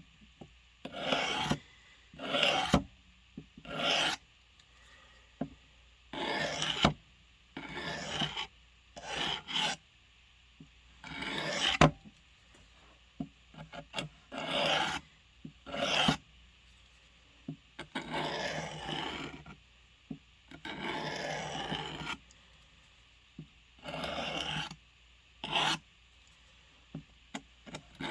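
A blade edge is drawn across a sharpener in about sixteen separate rasping strokes with pauses between them. Most strokes are short; two near the middle last over a second.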